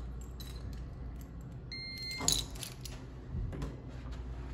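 Light jingling and handling clicks over a steady low hum, with a short electronic beep about two seconds in followed at once by a sharp click, the loudest sound here.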